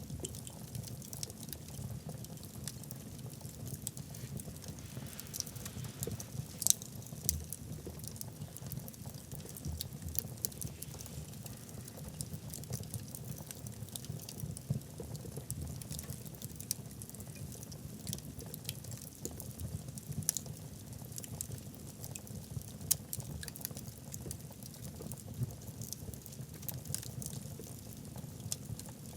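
Wood logs burning in a fireplace: frequent irregular crackles and pops over a steady low noise of the flames, with one louder pop about seven seconds in.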